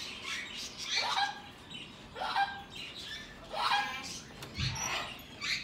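Green-cheeked conure calling: a run of short, raspy squawks, each rising at the start, about one every second or so.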